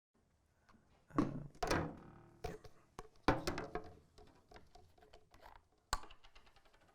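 A series of thunks and knocks with small taps between them; the loudest come about a second in, near three seconds and near six seconds.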